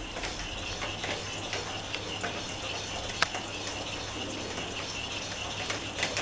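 Small battery motor inside a rolling cat-toy ball running with a faint steady whine and irregular light clicking as the ball rolls over a tile floor, with one sharper click about three seconds in.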